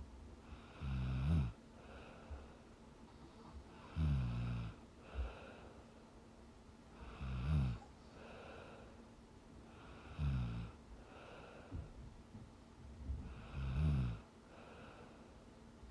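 A young woman snoring in her sleep: a short snore about every three seconds, five in all, with softer breaths in between.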